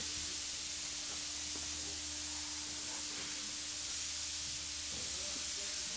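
Steady hiss with a low hum underneath and a faint steady tone that drops out near the end: room tone and recording noise.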